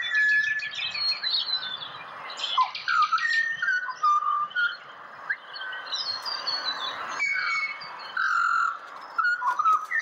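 Pied butcherbirds singing: clear whistled notes and pitch slides, with bursts of quick rattling notes. Several birds overlap throughout.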